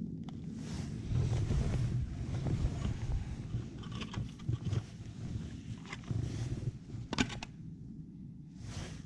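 Wind buffeting the microphone as an uneven low rumble, with handling noises over it: gloved hands rustling and clicks from handling a plastic piece, including a quick run of clicks about seven seconds in.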